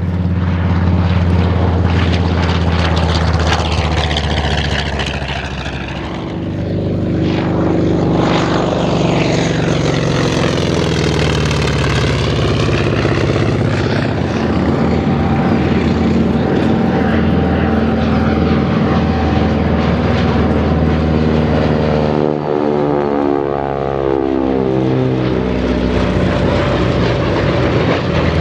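Radial-engine WWII naval warplanes making loud low passes one after another: a steady propeller-engine drone that swells and falls in pitch as each aircraft goes by.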